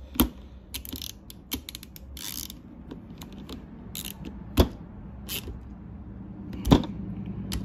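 A hand driver tightening the mounting screw of a Pertronix Ignitor module in a Bosch distributor: irregular small ratchet-like clicks and metal ticks, with one louder knock a little past halfway and another near the end.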